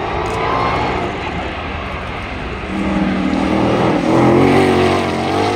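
Ford Mustang GTD's 5.2-litre supercharged V8 at full throttle, its engine note rising as it accelerates hard. It grows loudest as the car comes past, about four seconds in.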